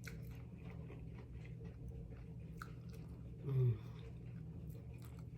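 Close-up chewing of food, with small wet mouth clicks. A short hummed voice sound, like an "mm", a little past the middle is the loudest moment.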